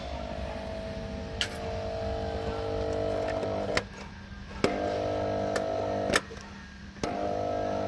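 Kärcher 580 pressure washer's electric motor running in short bursts as its switch is flicked: a steady hum that cuts off about four seconds in, restarts with a click under a second later, stops with another click about six seconds in, and starts again near the end.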